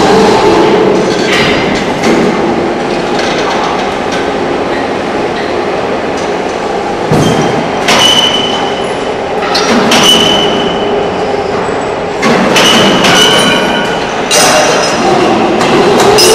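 Concrete pole feeding machinery running on steel rails beside a pole mould: a steady motor hum with repeated steel clanks, several of them ringing with a short high squeal, from about seven seconds on.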